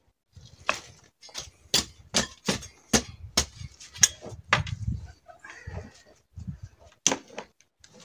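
Metal garden rake striking and scraping dry, sandy soil in a run of irregular strokes, about two a second, with one more stroke near the end.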